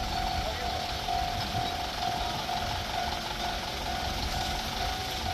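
Railway level-crossing warning bell ringing steadily, an even ringing tone repeating without a break, over a low rumble.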